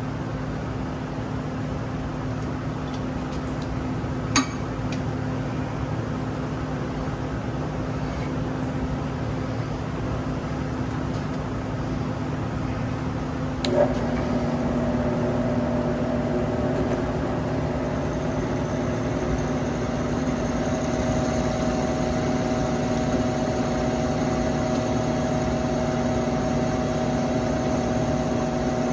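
A steady machine hum. About fourteen seconds in there is a click, and a drill press motor starts and runs steadily, adding a hum of its own. A faint high whine joins a few seconds later.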